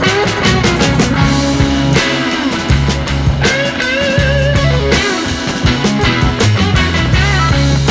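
Rock background music with electric guitar, bass and a steady drum beat, the lead guitar bending notes.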